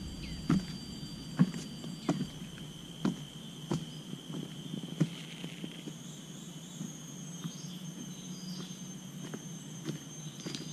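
Footsteps on dry leaf litter and twigs, a short scuff or crackle about every second, fainter in the second half. Behind them, forest insects keep up a steady high drone on two pitches.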